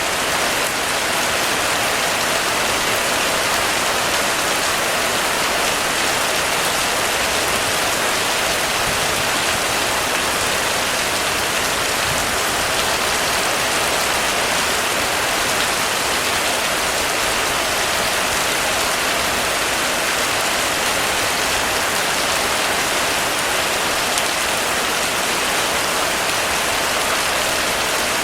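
Heavy rain falling steadily on a roof, a dense, even hiss of countless drops with no let-up.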